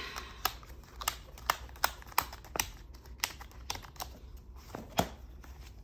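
Planner pages being pressed onto metal binder discs: a run of irregular sharp clicks and snaps, the loudest about five seconds in.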